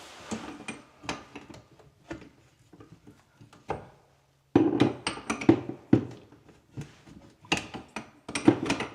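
Metal tool clicking and knocking against the fittings under a bathroom sink while a faucet's supply nuts are worked off. The clatter stops briefly about four seconds in, then comes back busier.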